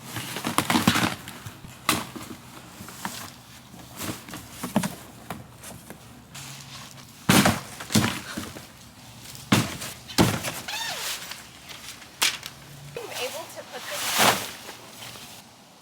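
Indistinct voices among irregular bursts of noise.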